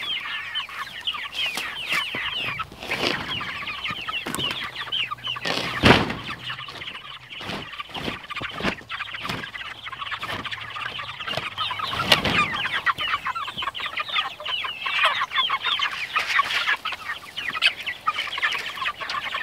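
A flock of young meat chickens peeping continuously in a chicken tractor. Several knocks from the wooden tractor being handled break in, the loudest about six seconds in and another around twelve seconds.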